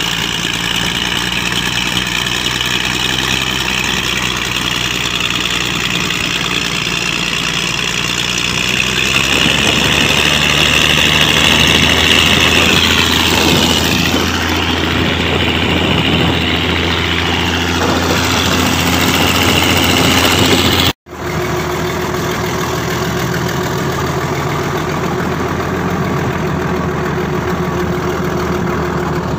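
Mitsubishi 6D16 six-cylinder diesel engine running steadily with a high whine over its low note. The note deepens and strengthens about a third of the way in, and the sound breaks off for an instant about two-thirds through before carrying on.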